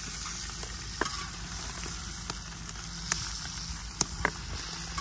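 Seafood broth boiling hard in a cast-iron kettle, a steady bubbling hiss, with a few sharp clicks as a metal ladle knocks against the pot.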